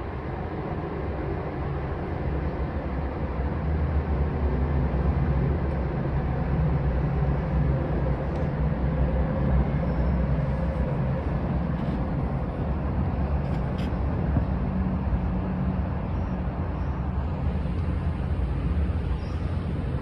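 Steady low rumbling noise, heaviest in the bass, that grows slightly louder about four seconds in and then holds.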